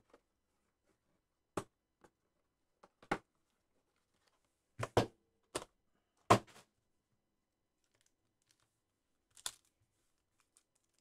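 Scattered short taps and clicks of a cardboard trading-card box and its foam insert being handled, about seven separate knocks spread over several seconds with quiet between them.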